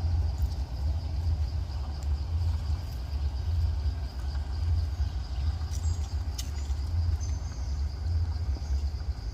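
Steady low outdoor rumble with a faint, steady high hum above it and a few brief high chirps about 6 and 7 seconds in.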